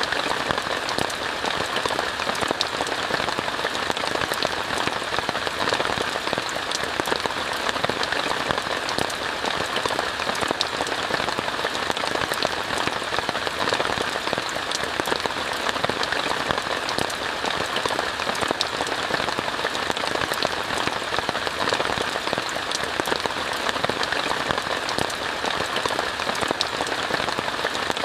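Steady rain falling on a tent, a dense even hiss full of small individual drop impacts, unchanging throughout.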